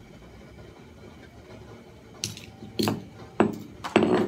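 Four short clatters and knocks of kitchen things being handled beside a stainless steel wok, starting about two seconds in, with the last one the longest.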